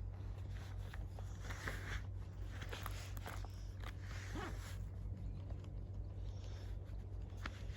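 Outdoor background: a steady low rumble with scattered small clicks and rustles, and a few faint high chirps.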